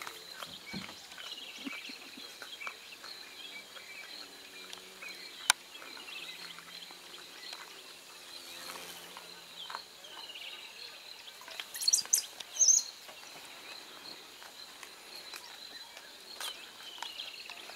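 Bush ambience: a steady high insect drone with bird calls repeating over it, a sharp click about five seconds in and a few loud high chirps near the middle.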